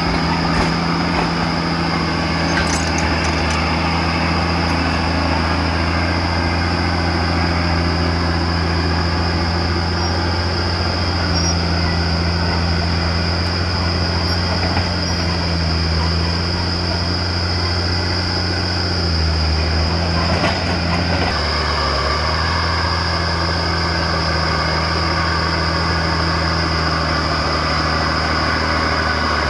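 Komatsu D50A crawler bulldozer's diesel engine running steadily under work, with a steady high whine over it. The engine note drops briefly about 19 seconds in and picks back up a couple of seconds later.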